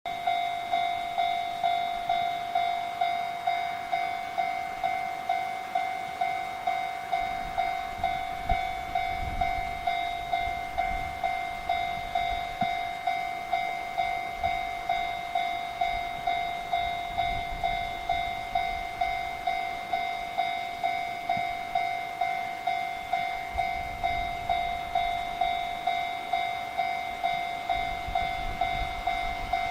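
Japanese railway level crossing's electronic warning bell ringing, a single clanging tone repeating evenly about two and a half times a second, the signal that a train is approaching.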